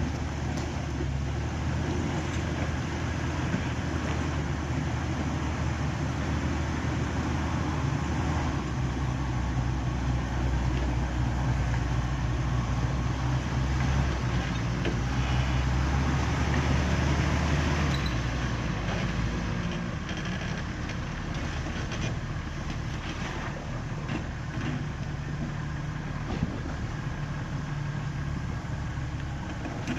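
Jeep Wrangler TJ's engine running at low, steady revs as it crawls up a loose, rocky trail, with a rough rumble over it. About two-thirds of the way through the engine note drops back and the sound gets a little quieter.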